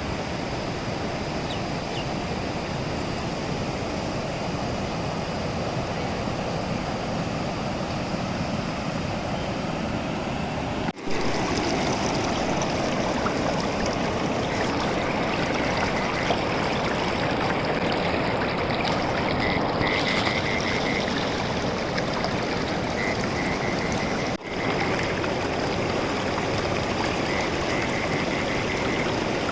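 Fast-flowing river water rushing steadily over the riverbed. The sound cuts out briefly twice and comes back a little louder after the first break.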